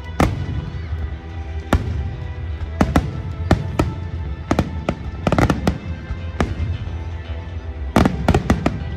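Aerial fireworks shells bursting in irregular bangs, with a quick run of bangs about five seconds in and another rapid run near the end, over music playing throughout.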